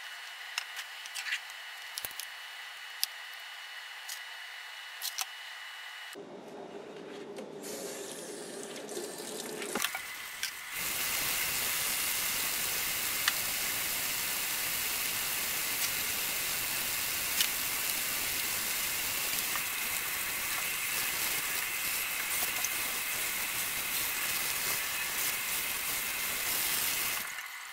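A few light clicks and handling sounds, then, about eleven seconds in, a kitchen tap starts running a steady stream into a stainless steel sink, splashing on a bleach-discharged shirt as it is rinsed. The water cuts off near the end.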